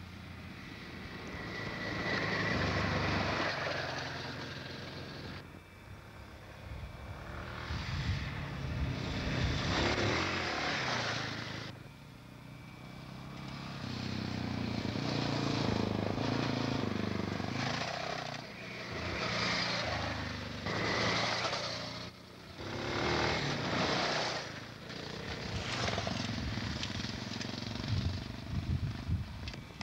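Off-road motorcycles riding along a dirt track, their engines swelling as they come near and fading as they move off, several times over, with revving in between.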